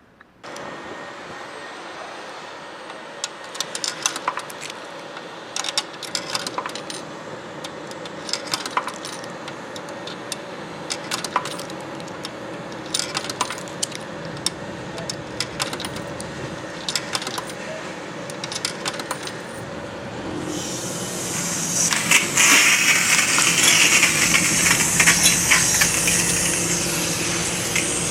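Coins clinking and dropping into a coin-operated car wash over a steady machine hum. About 20 seconds in, a high-pressure water spray starts hissing and grows louder.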